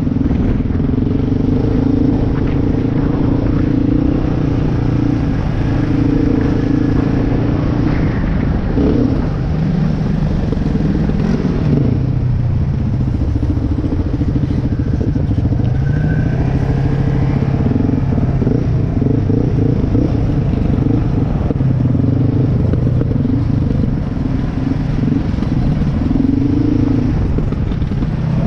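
Yamaha Raptor 660 quad's single-cylinder four-stroke engine running under way on a gravel trail, its pitch dipping and climbing again and again as the throttle is worked.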